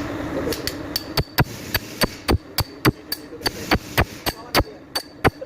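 Hammer blows on metal, struck repeatedly at about three a second, each with a short metallic ring.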